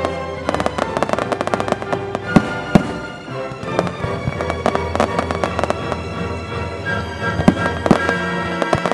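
Fireworks going off: dense crackling with two sharp bangs about two and a half seconds in, and more bangs near the end, over music with held notes.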